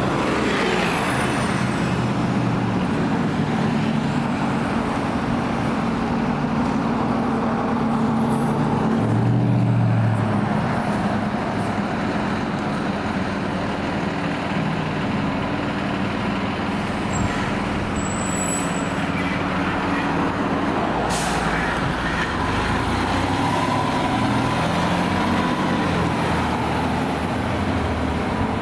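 Heavy fire engine's diesel engine running and pulling away, swelling briefly about nine to ten seconds in, with air brakes hissing near the start and a short sharp hiss of air about two-thirds of the way through.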